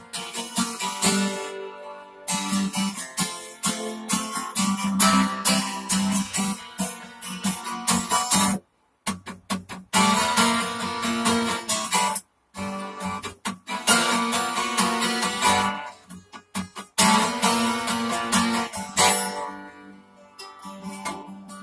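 Acoustic guitar being strummed in a steady rhythm, with no singing. The sound cuts out completely for a moment twice, around the middle.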